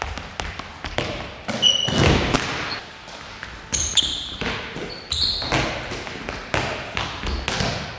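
Handballs bouncing and thudding on a sports hall floor, a dozen or so sharp impacts, with brief sneaker squeaks on the court during the footwork, echoing in the large hall.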